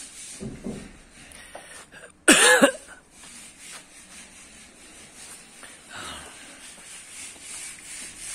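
A person coughs once, sharply, about two seconds in, with a softer throat sound shortly before it.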